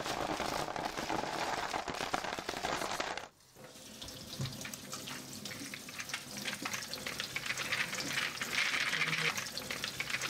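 A plastic bag crinkling as ceramic filter rings are tipped out of it into a plastic filter basket, then, after a short break about three seconds in, tap water running and splashing over the ceramic rings in the basket as they are rinsed.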